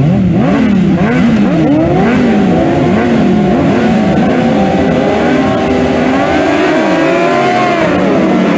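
Several sport motorcycle engines revving on a race start grid, their throttles blipped up and down over and over. In the last couple of seconds the bikes pull away and their pitch climbs.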